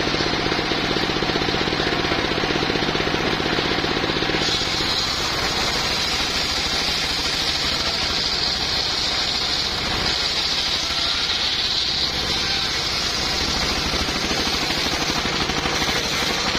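Single-cylinder stationary diesel engine running steadily with a rapid thudding beat, driving a circular sawmill blade. About four and a half seconds in, a high whine joins as the blade starts cutting through a log.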